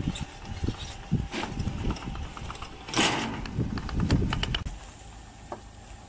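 Rubber tracks of a remote-control slope mower clunking and knocking over the rungs of metal ladder ramps as it drives down off a truck, with a short scrape about three seconds in. After about five seconds the knocking stops and only the steady low hum of its 764 cc two-cylinder petrol engine is left.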